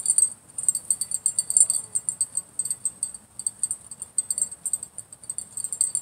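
Insects chirping in a fast, even, high-pitched pulsing chorus.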